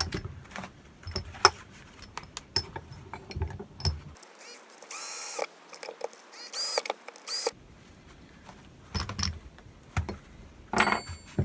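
Steel parts of a small bench vise clicking and clinking as a jaw plate is handled and refitted, with a few longer scraping sounds around the middle.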